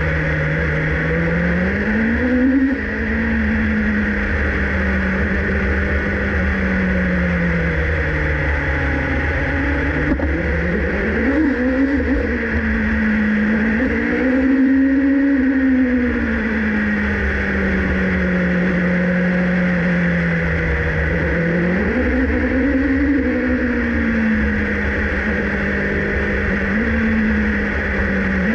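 2019 Alfa Romeo Racing Formula 1 car's Ferrari 1.6-litre turbocharged V6 running under light throttle, heard onboard, its pitch rising and falling gently several times as the throttle is eased on and off. A steady high whine and a low rumble run beneath it.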